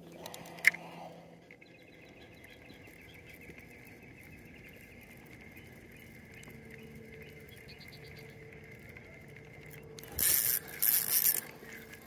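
A spinning reel cranked in three quick rasping bursts near the end, reeling in line. Before that there is a single sharp click about a second in, and a faint, steady high-pitched trill.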